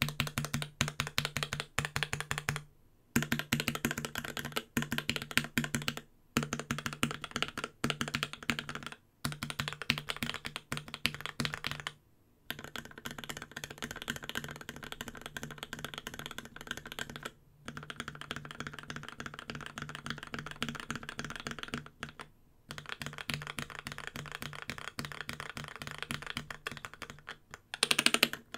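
Fast typing on a Space65 mechanical keyboard with lubed Tealios V2 linear switches, a carbon fiber plate and an aluminum case, with Cherry-profile keycaps. The keystrokes come in runs separated by short pauses, with a louder flurry near the end.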